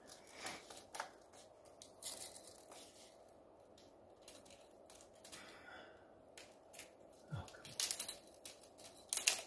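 Tape measure handled against a window frame: light clicks and scrapes of the blade, a few in the first two seconds and a cluster near the end, with a quiet stretch between.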